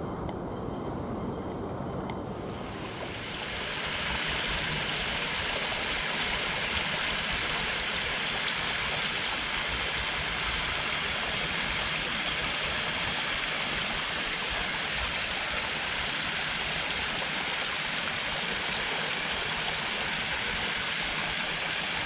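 Forest stream running, an even rush of water that swells up about three seconds in, after a quieter start with a low rumble. A few faint, short, high bird chirps.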